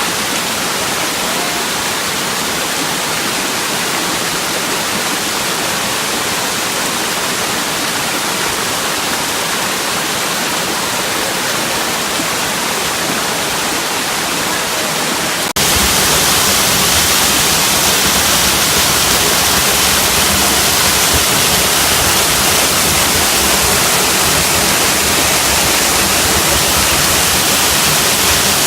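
Waterfall: a loud, steady rush of falling water. About halfway through it cuts abruptly to a louder, fuller rush with more low rumble.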